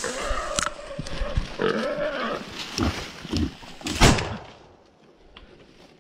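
Hunting dogs baying in long, drawn-out calls during a wild boar drive. About four seconds in comes one loud, sharp crack, the loudest sound of the moment, after which only faint rustling and footsteps remain.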